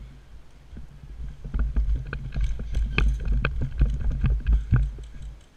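An airsoft player's footsteps at a quick walk or jog on tarmac and gravel, with heavy low thuds and irregular rattling clicks from the rifle and kit. The sounds build up about a second and a half in and fade out shortly before the end.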